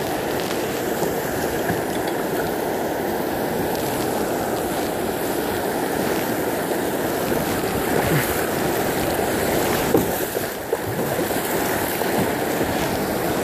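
Steady rush of river water running over shallow riffles, with a couple of brief knocks about two thirds of the way through.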